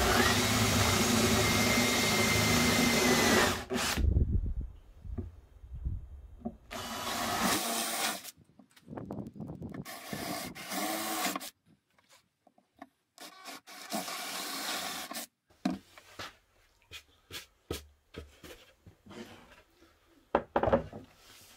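Cordless drill boring holes through a laminated wooden furniture board, with a steady motor whine. It runs for about three and a half seconds, then in three shorter runs. Near the end come scattered knocks and rubs as the board is handled.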